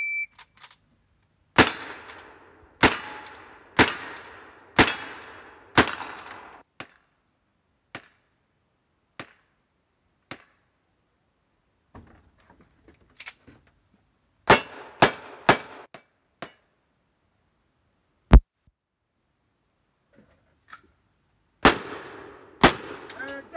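A short shot-timer beep, then black-powder gunshots, each with a ringing tail: a string of five about a second apart, a quicker string of five partway through, one sharp crack a little later, and two more shots near the end.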